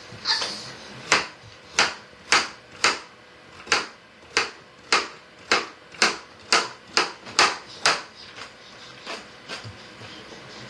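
Baby doorway jumper clicking sharply in time with each bounce, about two clicks a second, fading to a few fainter ones near the end.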